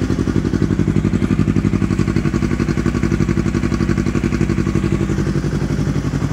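Yamaha R3's parallel-twin engine idling steadily through an Akrapovic full-system exhaust, a fast, even pulsing note.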